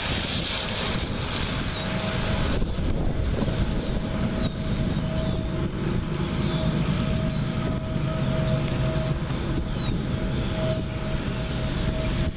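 Low rumble of an approaching freight train's diesel locomotives, GE Evolution-series (GEVO) engines together with an EMD 645 prime mover, growing stronger about two seconds in. Wind noise on the microphone and a steady high tone run underneath.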